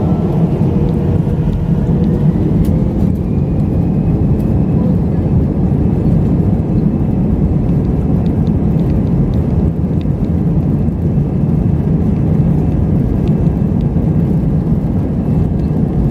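Steady, loud rumble of an Airbus jet airliner's engines and airflow heard inside the passenger cabin, with a faint rising whine a few seconds in.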